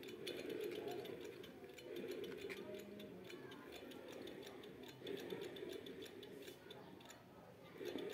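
Electric fan running after bearing replacement, with a rapid, fairly even ticking over a low hum: an unwanted noise in the reassembled fan.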